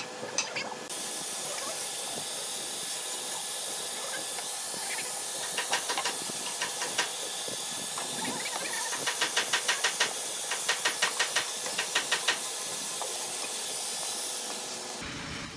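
Handheld angle grinder with a sanding disc switched on about a second in and held against a carved wooden chair back, giving a steady hiss that cuts off suddenly just before the end. Quick knocks, about four a second, come through in the middle.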